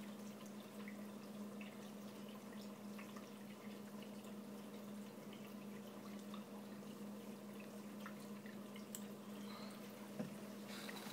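Saltwater aquarium water trickling and dripping, with a steady low hum underneath and a single brief knock near the end.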